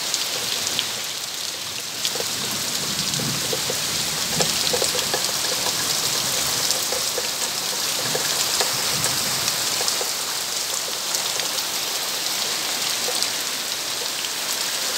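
Heavy rain pouring steadily onto a rice field and trees, a dense even hiss.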